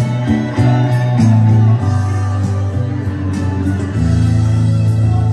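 Live amplified guitar music, an instrumental passage without singing, over sustained low bass notes that change every second or so.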